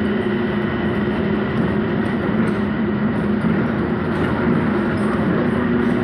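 Gold Line electric people-mover train running, heard from inside the car: a steady rumble with a low, even hum of a few steady tones that do not change.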